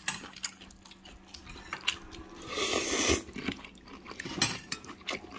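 Someone eating udon close to the microphone: chewing and light clicks of metal chopsticks on the metal bowl, with one loud slurp of noodles about two and a half seconds in.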